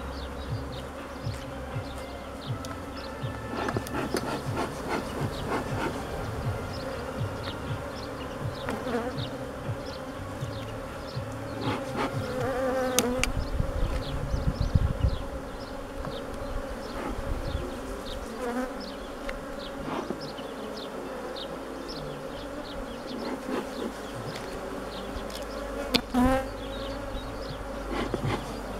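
Honeybees buzzing in a steady drone over an opened hive, with scattered clicks and knocks throughout and a louder run of knocks about halfway through.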